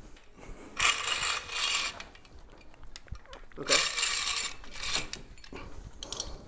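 Hand-crank cable hoist being cranked, its ratchet clicking rapidly in two bursts of a second or so each.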